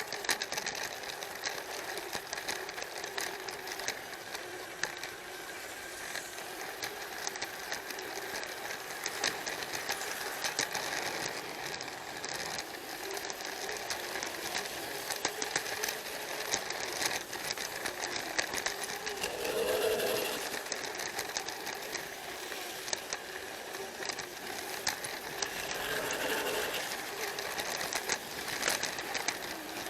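Battery-powered Plarail toy train running along plastic track: the steady whir of its small motor and gearbox, with frequent light clicks.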